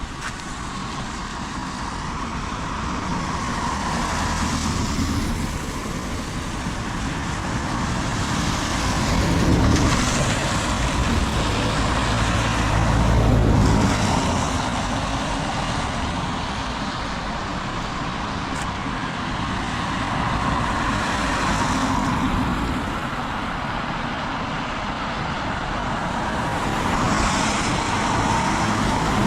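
Steady heavy rain, with vehicles passing on the wet road: several slow swells of tyre hiss, the loudest and deepest about halfway through.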